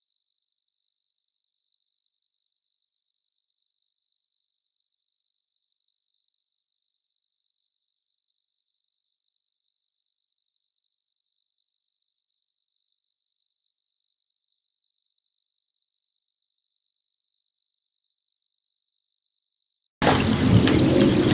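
Steady high-pitched insect chorus with no audible pulse. About twenty seconds in it cuts off abruptly and a much louder rush of water takes over.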